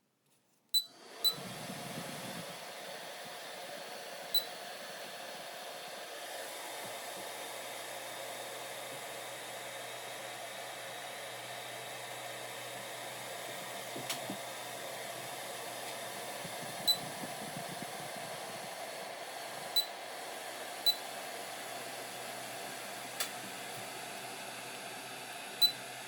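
Electric space heater's fan blowing steadily after switching on about a second in, with a handful of short high electronic beeps from its digital control panel.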